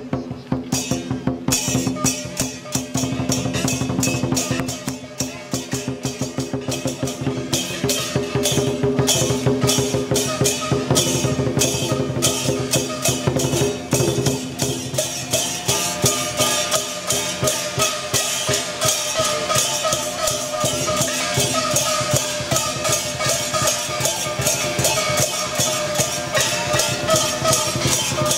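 Chinese dragon-dance percussion, drum with clashing cymbals, beating a fast, driving rhythm with ringing metal underneath, growing louder about eight seconds in.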